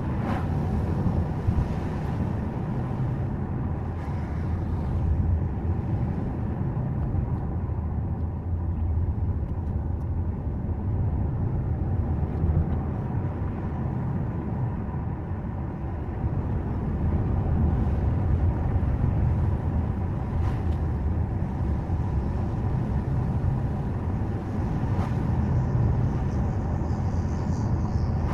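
Subaru Forester driving uphill, a steady low rumble of engine and tyre noise heard from inside the car.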